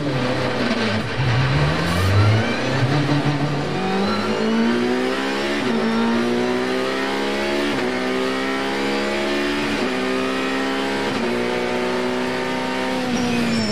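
Ferrari 458 GT2's V8 at full throttle, heard from inside the cockpit. The engine note climbs steadily for the first few seconds, then the car upshifts about four times, each shift a brief dip in the note before it carries on.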